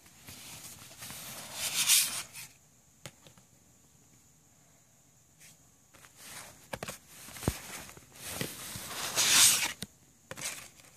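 Cardboard CD digipack being handled close to the microphone: card panels and a paper booklet scraping and rustling under the fingers in two bursts, with a few small clicks.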